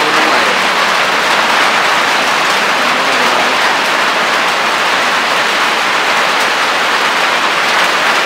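Heavy rain falling steadily: a loud, dense, even hiss with no let-up.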